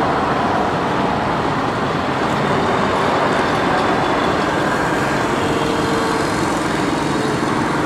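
Diesel truck engine running steadily.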